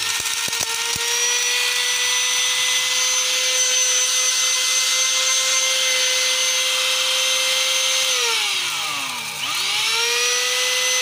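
SilverCrest 1000 W high-speed powder grinder running flat out with a steady high whine while its blades pulverise chunks of stone and concrete. About eight seconds in it is switched off and winds down in pitch, then is switched back on and spins up to full speed again a second or so later.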